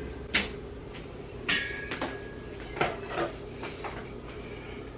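Kitchen clatter: a handful of separate knocks from cupboard doors and kitchenware while a bowl and a mesh strainer are fetched, one with a short metallic ring about a second and a half in, over a steady low hum.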